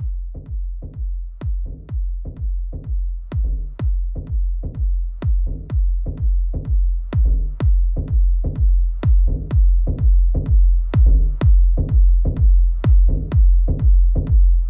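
Techno track: a drum-machine kick drum beating steadily, about two beats a second, over deep bass and little else, slowly getting louder.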